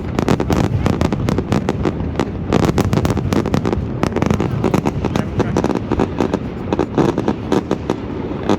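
Fireworks display exploding in a dense, continuous barrage of rapid bangs and crackles, with a few heavier bursts about three seconds in and again near the end.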